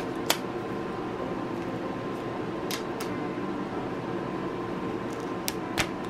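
Clear plastic film on a smartphone box giving a few short, sharp crackles as it is peeled off, over a steady background hum.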